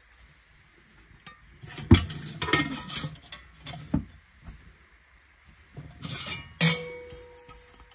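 Stainless steel cook pot and windshield knocking and scraping together as they are handled. There is a sharp clank about two seconds in, then scraping and a knock, and near the end a clank that leaves the steel ringing briefly.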